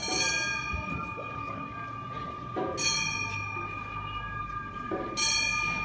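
Gion-bayashi festival music: three ringing metal gong strikes about two and a half seconds apart over a steady held high note.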